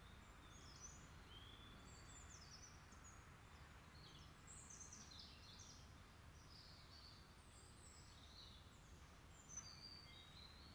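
Near silence in woodland: faint, scattered bird chirps over a low steady background hum, with one soft thump near the end.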